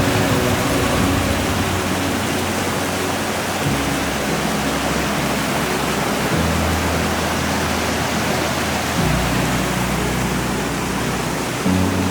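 Steady rush of a waterfall's falling water, with soft background music laid over it: sustained low chords that change about every two and a half seconds.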